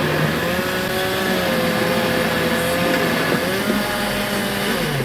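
A motor running steadily, its pitch dipping briefly twice near the end.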